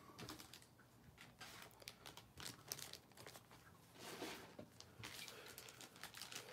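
Faint crinkling and rustling of plastic packaging, such as trading-card pack wrappers, being handled, with scattered light clicks and a denser rustle about four seconds in.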